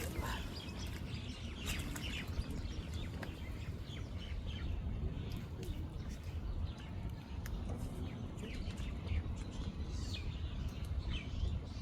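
Small birds chirping and tweeting, with many short calls scattered throughout, over a steady low rumble.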